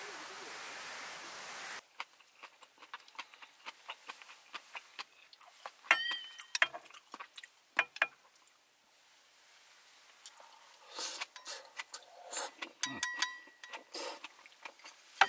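Light clicks, taps and clinks of small hard objects being handled, a few with a short metallic ring. A steady rushing noise fills the first two seconds and cuts off abruptly.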